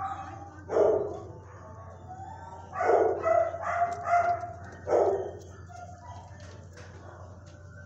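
Dogs barking in shelter kennels: one bark about a second in, a quick run of barks around three to four seconds in, and one more about five seconds in.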